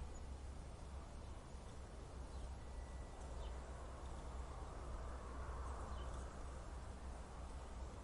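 Wind blowing steadily with a low rumble, swelling into a gust about five seconds in. Faint short high chirps sound now and then.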